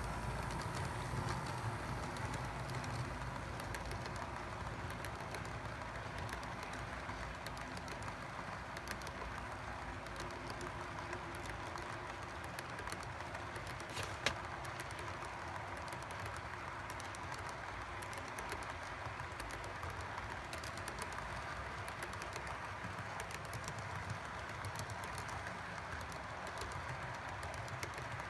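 Model freight train cars rolling along the track, a steady rolling rumble with a quick patter of small clicks as the wheels cross rail joints and turnouts. One sharper click about halfway through.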